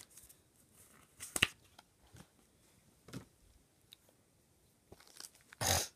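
Trading cards and booster-pack wrappers being handled: a few scattered light clicks and taps, then a short loud rustle near the end.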